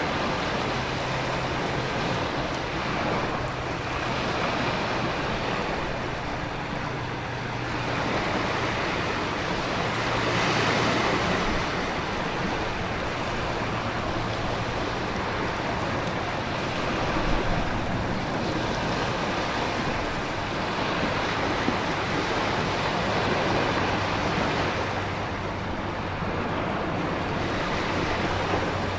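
Storm ambience of heavy rain, wind and ocean surf: a dense, steady rush that slowly swells and eases.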